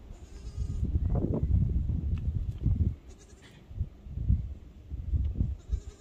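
Young goat kid bleating close to the microphone, several separate calls, with low bumping and rustling under them.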